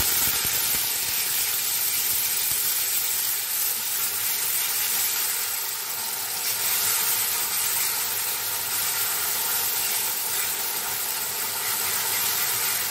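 Loud, steady sizzling of wet ground onion paste frying in hot oil in a kadhai as it is stirred with a silicone spatula.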